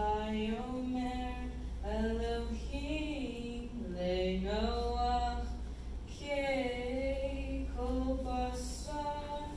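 A solo voice chanting Hebrew liturgy into a microphone, unaccompanied, in a slow melody of long held notes with gliding turns. A steady low hum sits underneath.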